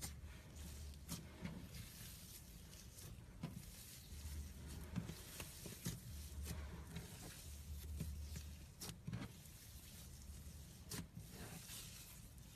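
Slime being squished and worked by hand, with faint, irregular sticky clicks and small pops scattered through.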